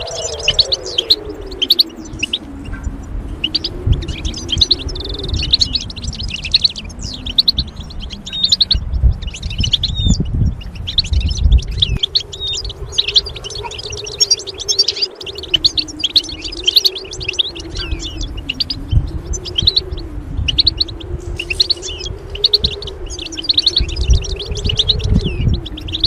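European goldfinch song: fast, continuous twittering, with a low tone slowly wavering up and down underneath.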